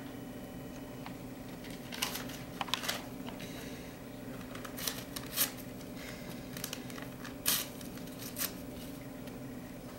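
Paper being handled on stage: a few short, scattered rustles and crinkles over a steady low hum.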